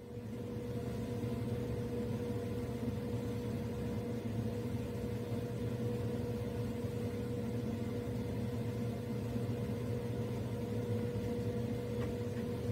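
Steady machine hum: a low drone with a constant mid-pitched tone held over it, unchanging throughout.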